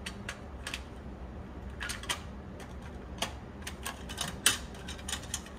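Irregular light clicks and clacks of plastic cassette cases being handled, over a low steady hum.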